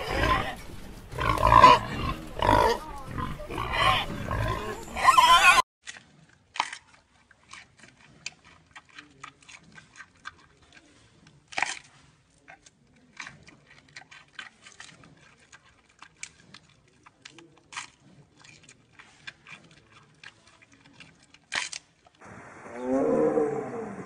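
Warthogs grunting loudly in quick repeated bursts, which stop abruptly about five seconds in. A long stretch of faint scattered clicks follows. About two seconds before the end, a white tiger growls in a low rumble.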